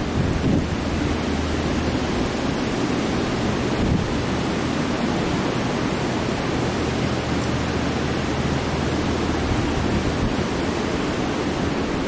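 Strong, gusty wind rushing through bare treetops and buffeting the microphone: a steady noise heavy in low rumble.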